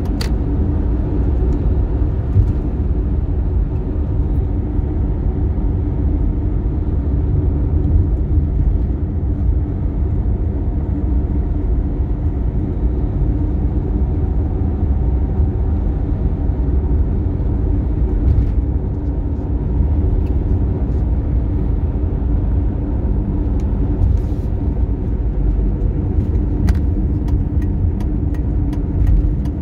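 Toyota Tercel driving at highway speed: a steady low rumble of engine and road with an even hum over it, unchanging throughout.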